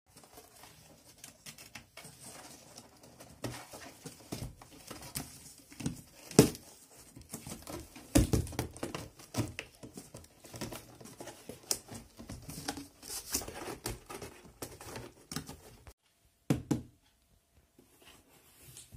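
A cat scrabbling and scratching inside a cardboard box, the cardboard rustling, scraping and knocking in irregular bursts. It goes quiet about 16 s in, apart from two knocks shortly after.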